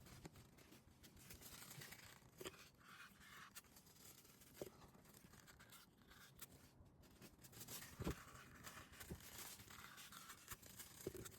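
Near silence with faint scraping and four light knocks spread through it, the third the loudest: quiet handling noises.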